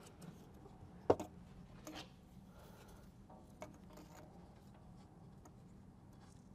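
Faint handling noises from parts being worked by hand: a few scattered clicks and knocks, with a sharp clack about a second in.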